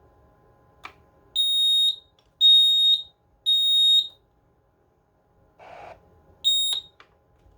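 SignalOne vocal smoke alarm sounding: three loud, high-pitched beeps about a second apart, a pause, then the next beep, the three-beep evacuation pattern of a smoke alarm that has just activated on test.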